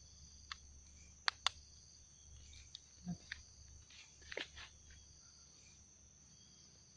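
Steady high chirring of crickets and other night insects, with a few sharp clicks breaking through, two of them close together about a second in.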